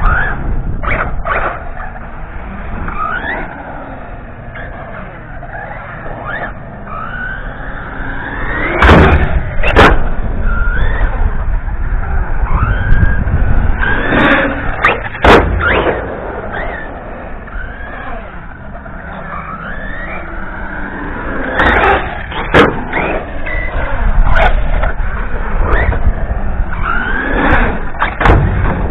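Radio-controlled truggy's motor revving up and down in repeated rising whines as it is driven hard. Several loud knocks, about five, come from the car landing jumps on the skatepark ramps.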